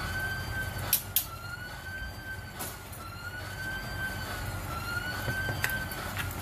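An emergency-vehicle siren wailing slowly up and down in the background, over the steady hiss of simmering sauce. Metal tongs click sharply against the frying pan a few times, twice close together about a second in, as pork steaks are turned.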